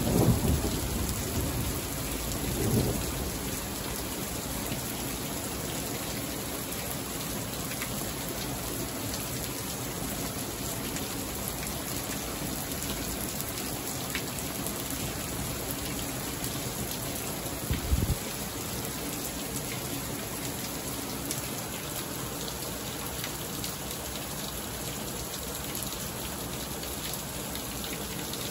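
Heavy rain falling steadily, with thunder rumbling through the first few seconds. A short low thump comes about eighteen seconds in.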